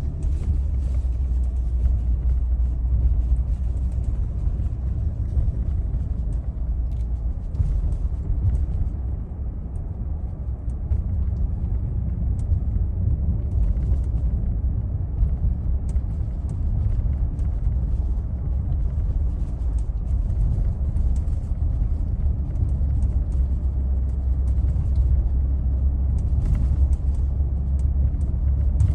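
Dashboard of a 2022 Toyota Tundra rattling while the truck drives, heard from inside the cab: irregular small ticks and clatters over a steady low road and engine rumble.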